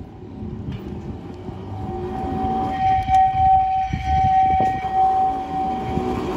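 Tosaden tram car 198 running round a tight curve. A steady high-pitched wheel squeal starts about two seconds in and stops just before the end, over a rumble that grows louder as the tram nears. A few sharp clunks come about halfway, as the wheels cross the rail joints.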